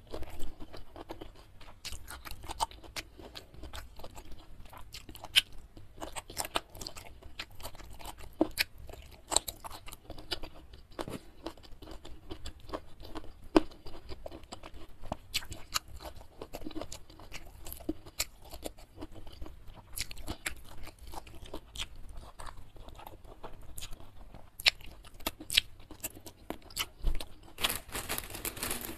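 Close-miked chewing and lip smacking of a person eating a meal by hand, with many irregular sharp wet clicks. A brief dense rustle comes near the end.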